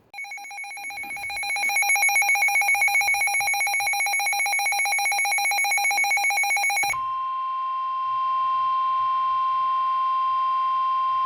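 A weather alert radio sounds a rapidly pulsing alarm beep for about seven seconds. It then switches abruptly to the steady 1050 Hz warning alarm tone of a NOAA Weather Radio broadcast, which holds for the rest and marks the start of a new warning message.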